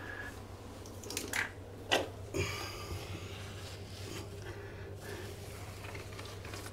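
Wet cloth wiping and scrubbing a tiled floor around a toilet flange, with a few short knocks and rubbing scrapes about one to three seconds in, over a low steady hum.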